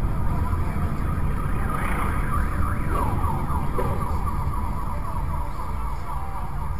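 Heavy, steady road and engine rumble from a moving vehicle, with a tone gliding up and down over it throughout, siren-like.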